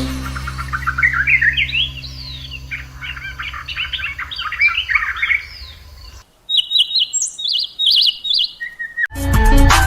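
Small birds chirping and twittering in quick runs of notes over a steady low hum. After a short break about six seconds in, a bird gives short, high, repeated chirps in quick groups. Electronic music with a beat starts near the end.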